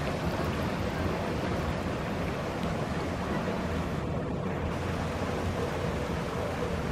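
Steady rushing of moving water in a pool.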